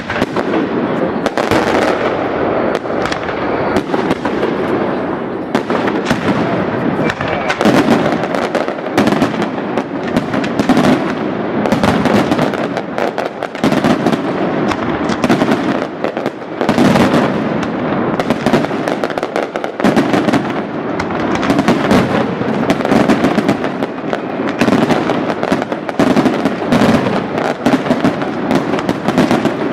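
Aerial fireworks display: a dense, continuous barrage of shell bursts, many overlapping bangs and pops a second with no pause.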